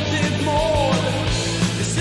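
Punk rock song from a 1984 recording: electric guitar, bass guitar and drums playing with a steady beat, with a sung melody line wavering over them.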